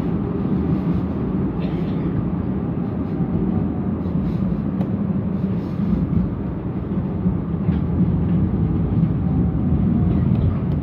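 London Tramlink tram running along its track, heard from inside the passenger car: a steady low rumble of wheels and running gear at an even level, with a faint whine now and then.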